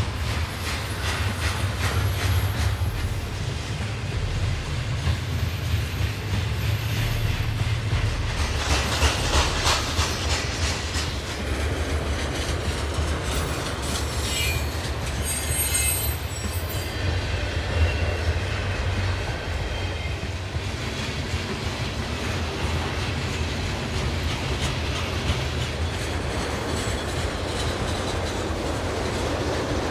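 Freight train rolling past: a steady low rumble of the rail cars with the clickety-clack of wheels over the rail joints, and brief high wheel squeals about halfway through.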